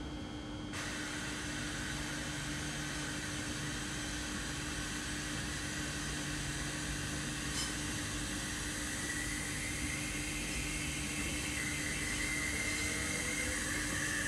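Double-deck electric multiple unit (Regio 2N-type TER) pulling out of the station: a steady hiss sets in about a second in, and a traction whine rises slowly in pitch as the train gathers speed.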